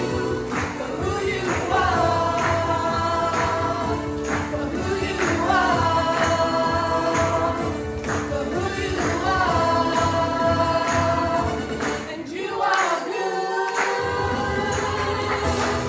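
Gospel choir singing held chords in harmony over a band with a steady beat; the bass drops out briefly about three-quarters of the way through.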